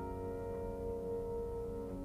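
A piano chord ringing on after being struck, its notes held and slowly dying away.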